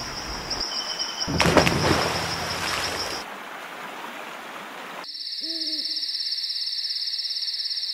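Night-time soundscape: crickets chirping in a fast, steady pulse, with a short owl hoot a little past halfway. About a second and a half in, a rush of noise lasting under two seconds.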